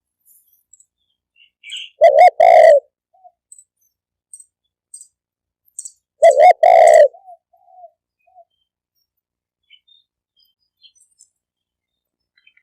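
Spotted dove cooing: two loud phrases about four seconds apart, each a short note or two followed by a longer rolling coo. Faint high chirps come in between.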